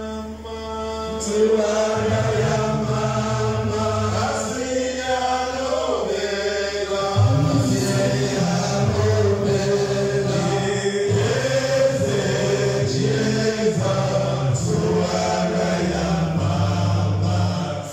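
Vocal music: voices singing a chant-like song over a low bass line that steps between held notes.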